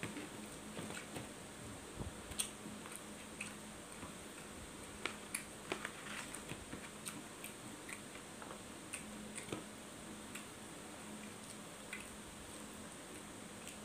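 Close-up eating sounds: a person chewing rice and meat with scattered wet mouth clicks and smacks at an irregular pace, the loudest of them a few seconds in. Under them runs a steady low hum.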